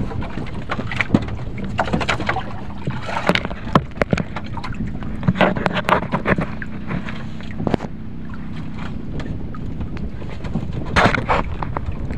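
Sea water slapping against a small wooden outrigger boat, with scattered sharp knocks and clicks from the hull and gear.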